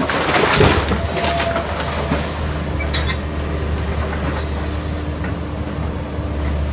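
Link-Belt 160 LX tracked excavator's diesel engine running steadily under load, with a steady whine, as the machine tears into a wooden house. Wood cracks and splinters in the first second and again about three seconds in, and high-pitched squeals come near the end.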